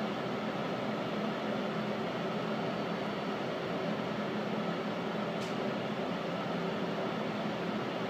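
Steady hum and hiss inside a subway car, from its ventilation running, with a brief faint high squeak about five and a half seconds in.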